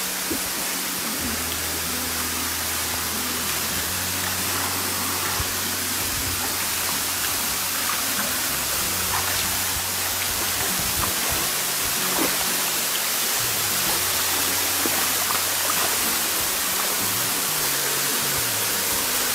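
Steady rush of a shallow stream and a small waterfall, with background music's low notes underneath.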